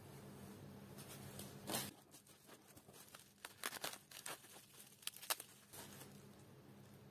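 Plastic bubble wrap crinkling and rustling as it is pulled off a small potted plant. There is a sharp crackle about two seconds in, a quick run of crackles around three and a half to four seconds, and two more near five seconds.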